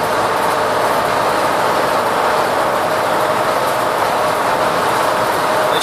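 Inside the cab of a Mitsubishi L300 van, its 4G63 SOHC eight-valve four-cylinder engine runs steadily at about 3,000 rpm in fifth gear on the Weber 32/36 DGV carburettor's primary barrel only, mixed with road and tyre noise at highway speed.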